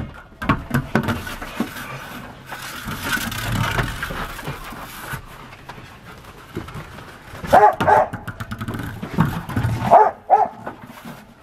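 Dogs playing with a large ball on a wooden deck: knocking, clicking and scuffing on the boards. A dog barks in short bursts about two-thirds of the way through and again near the end.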